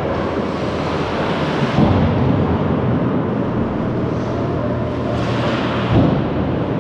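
Ice hockey play in a rink: a steady low rumble and hum with skate blades scraping the ice, and two heavy thuds, one about two seconds in and one near the end.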